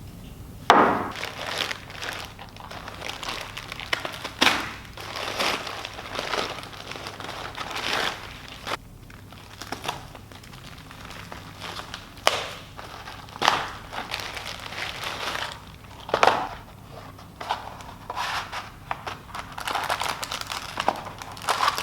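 Plastic packaging being handled and opened, crinkling and rustling in irregular bursts, with several louder sharp crackles.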